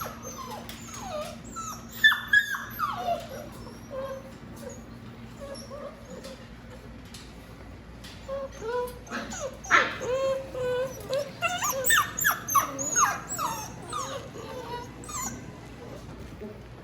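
Bernedoodle puppies whimpering and yipping, many short high calls that overlap, busiest in the first few seconds and again through the second half.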